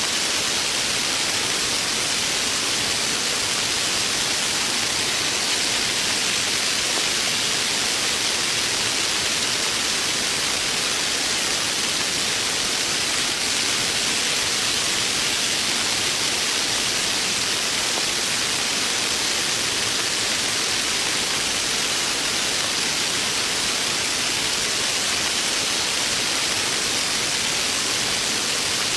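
Heavy rain pouring down steadily, an even hiss with no breaks or separate sounds.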